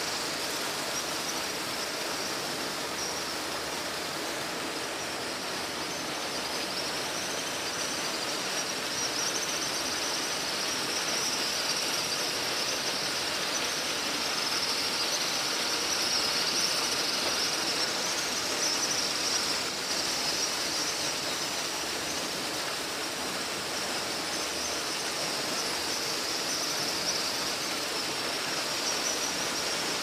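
Steady rush of a thin stream of water falling from above and splashing, with a continuous high-pitched chirring over it.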